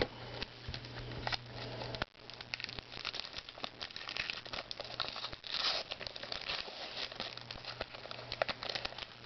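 Trading card pack wrapper crinkling and cards being handled and flipped, an irregular run of rustles with small clicks and crackles.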